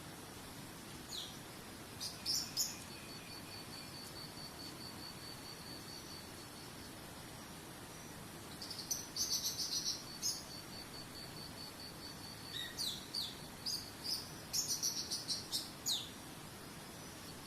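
Songbirds chirping in short bursts of quick, sharp, downward-sweeping notes, three times, the longest run near the end, over a steady, evenly pulsing high insect trill like a cricket's.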